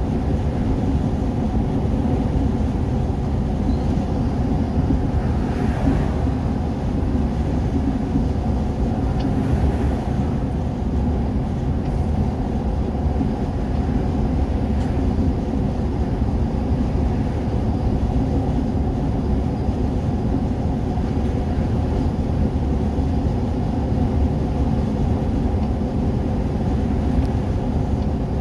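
Steady engine drone and tyre noise heard inside the cab of a vehicle cruising at highway speed. The sound is low-pitched and even, with a few steady hums.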